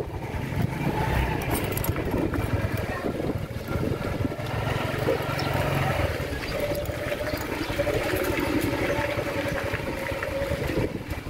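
Honda CD-70's small single-cylinder four-stroke engine running under way, heard from the rider's seat with road and wind noise. A slight gear hum remains, which the owner puts down to the large clutch cushion gear that was not replaced.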